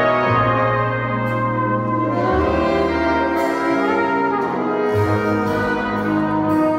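Jazz big band brass section playing sustained chords, with the bass changing note twice.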